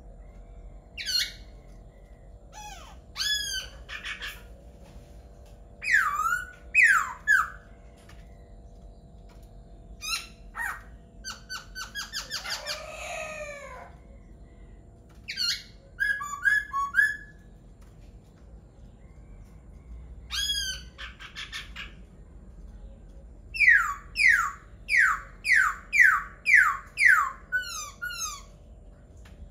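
A laughingthrush singing loud whistled phrases separated by pauses, ending in a run of about nine clear notes, each sliding downward, about two a second. A faint steady hum runs underneath.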